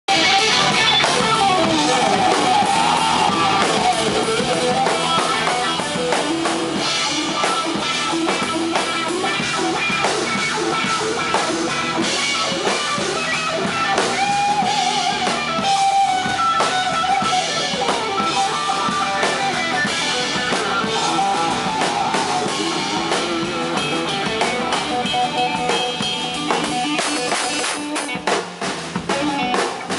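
Live rock band playing loudly: a drum kit under an electric guitar lead with bent, wavering notes. In the last few seconds the playing thins out to sharp separate drum hits as the drum solo begins.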